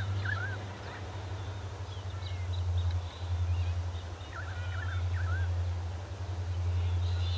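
Distant diesel locomotives hauling a loaded grain train, heard as a steady low engine drone. Birds call over it: a warbling call at the start and again about four seconds in, with a few higher chirps between and near the end.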